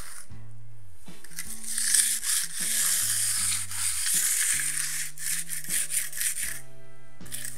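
Steel hand trowel scraping and rubbing over a freshly laid, still-wet concrete slab in repeated strokes, pausing about a second in and again near the end, over background music.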